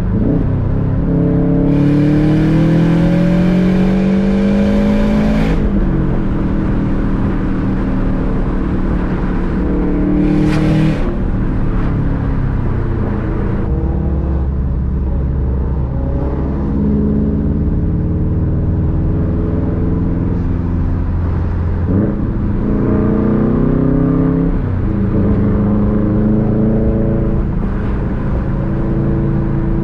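Subaru WRX STI's turbocharged flat-four with its boxer rumble, pulling hard through the gears, its pitch climbing and dropping at each shift. Loud hissing from the external wastegate comes in during the first pull and again briefly about ten seconds in. In the middle there is a steadier low drone before it accelerates through two more pulls.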